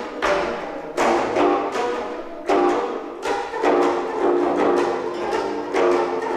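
An ensemble of four geomungos, Korean zithers, each tuned differently (scordatura), played with bamboo sticks. Sharp strikes come at uneven intervals, each followed by ringing, overlapping string tones.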